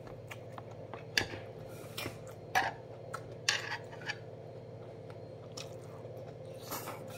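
Eating at a table: scattered short clicks and taps of metal chopsticks against dishes, with chewing, over a steady low hum.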